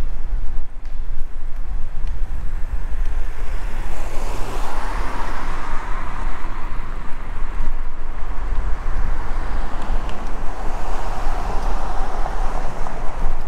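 Wind rumbling steadily on the microphone of a moving bicycle's camera, with the rushing noise of passing traffic that swells about four seconds in and again near the end.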